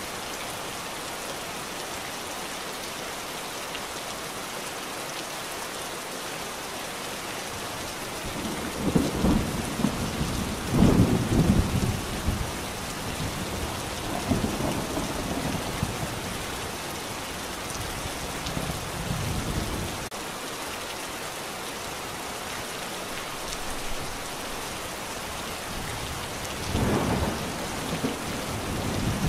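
Steady rain, with low thunder rumbling in several rolls: the loudest comes about a third of the way in, with more following and another near the end.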